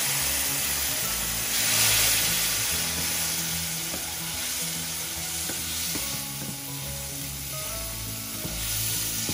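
Hot onion-tomato masala in a frying pan sizzling and bubbling as a little water is poured in and stirred with a wooden spatula, the sizzle surging loudest about two seconds in.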